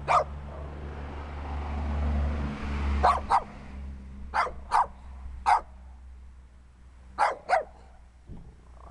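Small dog barking in short, sharp barks, mostly in quick pairs, about eight in all with pauses of a second or more between them.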